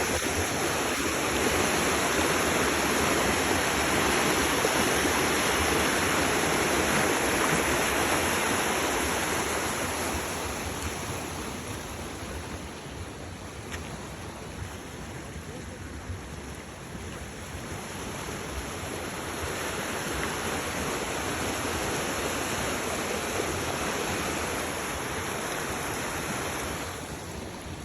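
Water rushing steadily over a small waterfall. It is louder in the first ten seconds, softer in the middle, louder again, and eases off near the end.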